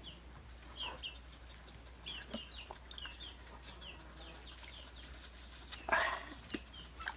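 Chickens clucking, with a run of short high chirps several times a second and a louder call near the end.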